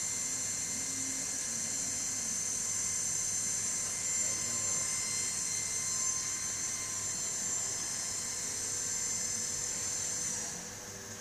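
Tornos Deco 13a Swiss-type CNC lathe running: a steady high-pitched whine made of several tones over a hiss of spraying coolant. Near the end the whine changes and the sound drops a little.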